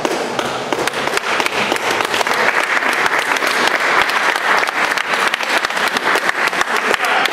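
Audience applauding with dense, fast clapping that grows louder about two seconds in.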